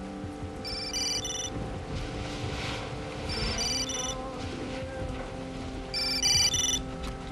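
A phone ringing with an electronic ringtone: three short bursts of high chiming tones, roughly every two and a half seconds, the last the loudest, over soft background music.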